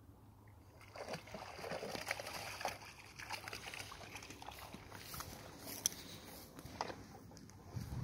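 Water splashing and sloshing, starting about a second in and going on unevenly in small irregular splashes.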